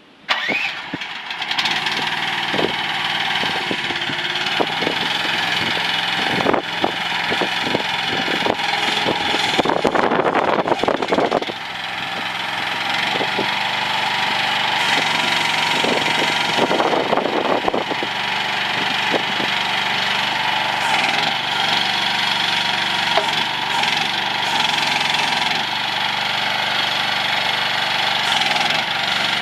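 Diesel engine of a CFG QK18R mini excavator starting just after the start and then running steadily, with a series of sharp clanks and knocks and louder surges from about six to twelve seconds in and again around seventeen seconds.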